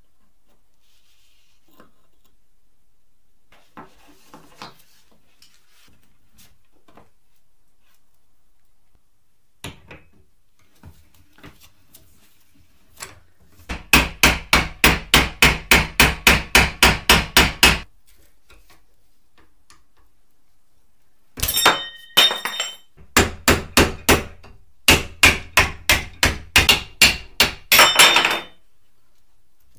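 Hammer striking a steel punch set against the steel frame of a small transformer held in a bench vise, knocking the frame apart. There are a few faint clinks of handling at first, then a run of about sixteen quick blows at about four a second from a little before halfway. Three more runs of blows follow near the end.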